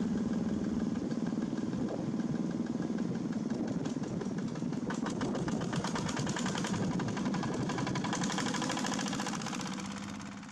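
Single-cylinder diesel engines of two-wheel walking tractors running with a steady hum. A rapid knocking clatter joins in about four seconds in, and the sound fades out at the end.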